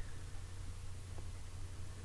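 Quiet room tone: a steady low hum with a faint hiss.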